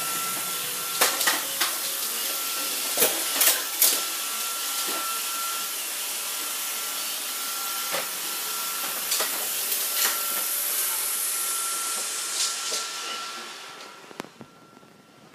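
Robot vacuum cleaner running: a steady hiss of its suction motor with a thin high whine, broken by a scattering of sharp knocks, clustered around the first four seconds. The running sound fades out near the end.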